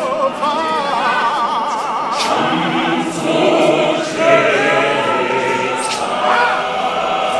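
Church choir singing, the women's voices high and wavering, with lower voices joining the harmony about two seconds in.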